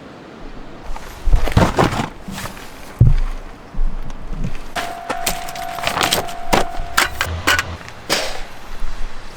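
A run of sharp cracks and knocks in several clusters, the loudest about a second in and three seconds in, with a thin steady tone ringing for about two seconds midway.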